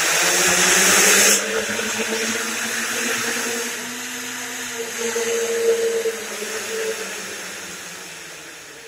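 Homemade multirotor drone's motors and propellers spinning while it sits on the ground, a steady whirring hum. A loud rushing hiss cuts off about a second and a half in, and the whir slowly winds down near the end. One motor isn't running, so the drone can't lift off.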